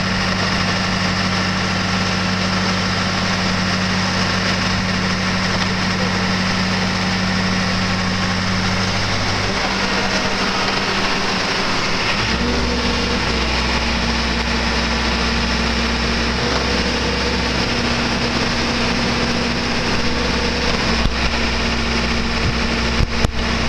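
Boat hoist's engine running steadily while it lifts a yacht in its slings. Its note changes about ten seconds in, and a few sharp knocks come near the end.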